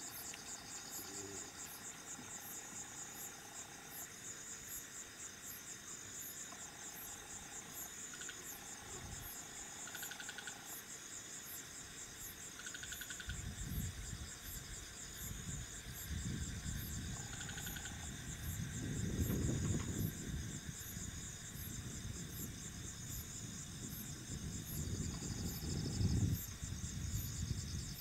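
Night chorus of crickets and other insects: steady high chirping with a regular pulse a little over once a second, and shorter trills coming and going. From about halfway, bouts of low rumbling noise come in, the loudest near the end.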